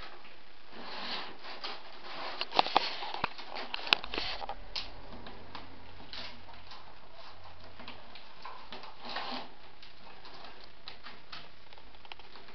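Willow rods rustling, creaking and clicking against the upright stakes as a round wicker basket is woven by hand. A cluster of sharp taps comes about two to four seconds in, then lighter irregular rustling.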